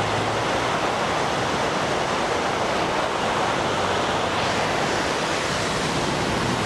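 Steady rushing of flowing river water, an even roar with no breaks.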